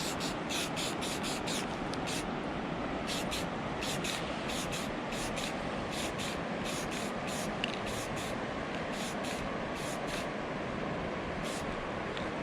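Aerosol spray paint can hissing steadily as paint is sprayed onto a homemade ice saw blade to keep it from rusting.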